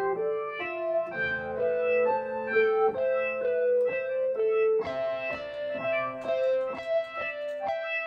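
Roland SK-88 Pro Sound Canvas keyboard played with both hands: a slow melody over held chords, the notes changing about twice a second, sounding brighter from about halfway through.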